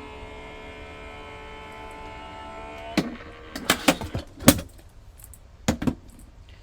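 Electric Sizzix die-cutting machine's motor running with a steady hum as it rolls the cutting sandwich through, winding down about three seconds in. A series of sharp clicks and clacks follows as the cutting plates and metal dies are handled.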